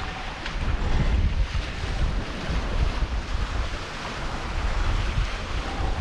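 Sea water rushing and splashing along the hulls of a sailing catamaran under way, with wind buffeting the microphone as an uneven low rumble.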